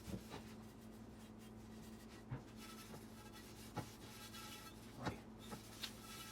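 Faint rubbing of a cloth wiping a thin coat of olive oil over a cast iron skillet, with several light knocks as the pan is handled.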